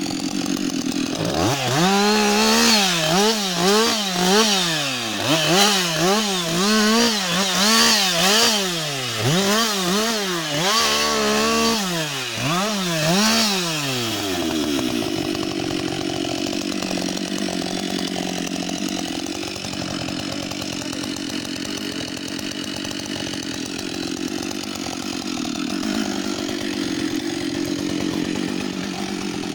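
Husqvarna 560 XP two-stroke chainsaw engine, blipped up and down over and over, then settling to a steady idle about halfway through.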